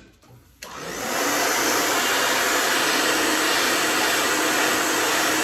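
Handheld hair dryer switched on about half a second in, spinning up quickly and then blowing steadily.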